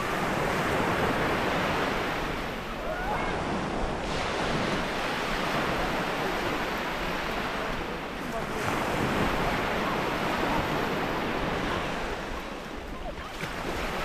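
Sea waves washing in over a stony shore, the surf swelling and easing every few seconds.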